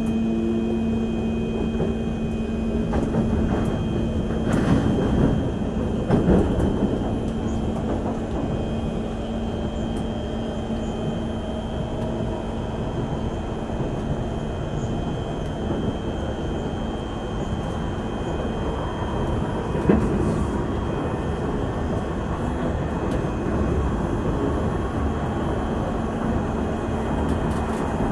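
Inside a Singapore MRT train carriage as it pulls away from the station and runs along an elevated track: steady rumble of wheels and running gear with a low hum. A few knocks from the wheels on the rails come a few seconds in, and one sharp knock comes about twenty seconds in.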